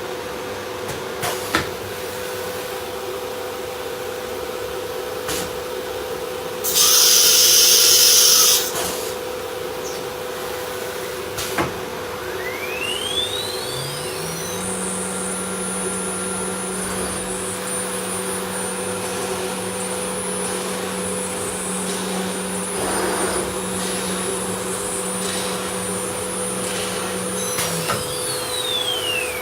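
CNC router running with a steady machine hum. About a quarter of the way in there is a loud hiss of compressed air lasting about two seconds. Later the router spindle whines up to speed in a rising glide, runs at a steady high pitch, and winds down in a falling glide near the end.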